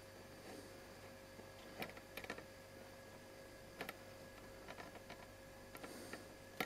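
Near silence: faint room tone with a few light, scattered clicks.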